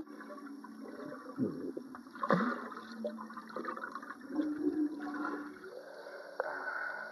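Pool water bubbling and gurgling, heard underwater, as swimmers dive and stir it. Splashing at the surface near the end.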